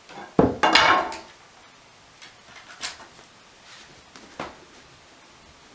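Loose wooden stair baluster clattering as a Scottish terrier pulls it free with her mouth: one loud clatter of wood about half a second in, followed by two lighter knocks.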